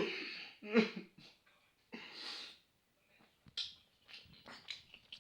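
A person's two short vocal outbursts, a breathy exhale about two seconds in, then faint crunching and clicking of chewing.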